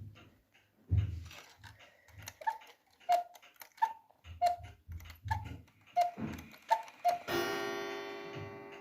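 Hubert Herr Black Forest cuckoo clock striking: its bellows whistles give four two-note cuckoo calls, with clicks and thumps from the movement. A single gong strike follows near the end and rings out slowly.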